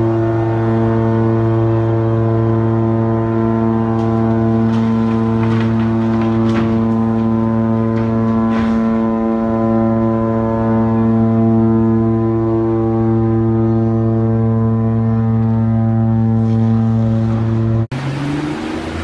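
Cruise ship MSC Opera's horn sounding one long unbroken blast, a deep steady note, a warning as the ship runs out of control into the quay. It cuts off suddenly near the end.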